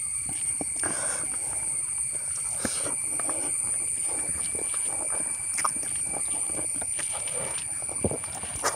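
Outdoor ambience: a steady high-pitched drone of insects, with scattered small clicks and rustles from hands eating rice off a banana leaf, and a sharper click near the end.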